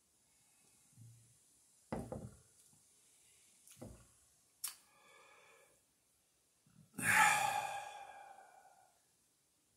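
A man lets out a long, loud sigh a few seconds after a swig from a glass bottle; it is the loudest sound, starting about seven seconds in and fading over about two seconds. Before it come a couple of dull thumps and a sharp click as the bottle is lowered and handled.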